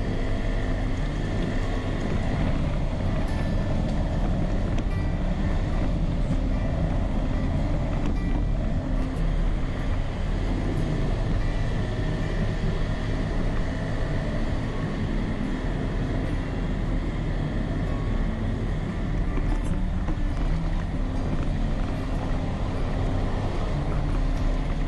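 Small motor-scooter engine running steadily at cruising speed, with road and wind noise from the moving vehicle.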